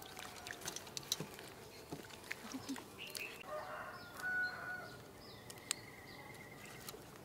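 Chickens clucking, with short pitched calls a few seconds in, over scattered light clicks.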